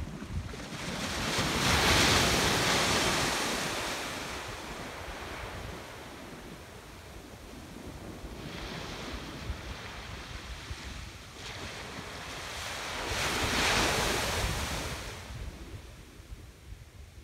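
Small ocean waves breaking and washing up a sandy beach, the surf swelling up and dying away, loudest about two seconds in and again near the end, with a softer wash in the middle. Low wind rumble on the microphone runs underneath.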